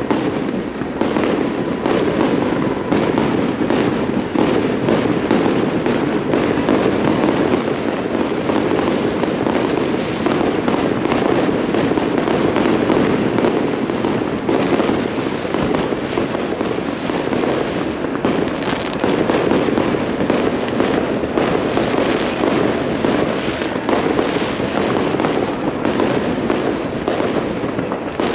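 Aerial fireworks display: a dense, unbroken barrage of shell bursts and crackle, bangs following one another many times a second without a pause.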